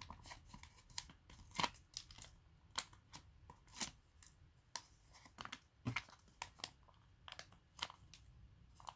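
Hands handling paper label sheets and clear plastic stamp packaging on a tabletop: scattered light crinkles, rustles and small clicks, a few of them sharper.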